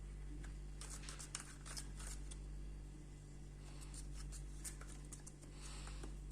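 Faint, scattered light clicks and scrapes of hands handling a container of honey mixture, over a steady low hum.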